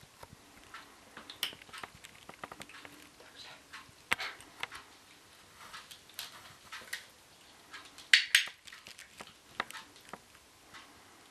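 Sharp clicks of a training clicker at irregular intervals, the loudest a quick double click about eight seconds in, amid small crunching sounds of kittens chewing treats taken from a hand.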